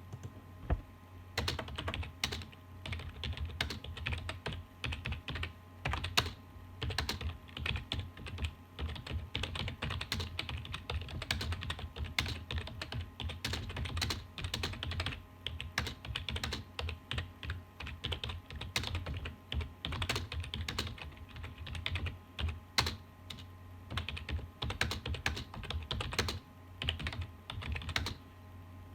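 Typing on a computer keyboard: a fast, irregular run of key clicks, with a faint steady hum underneath.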